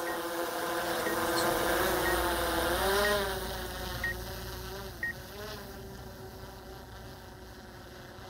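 DJI Mavic Air 2 quadcopter's propellers buzzing as it climbs away after a hand launch. The buzz wavers and rises in pitch about three seconds in, then fades steadily as the drone gets farther off, with a faint short beep about once a second.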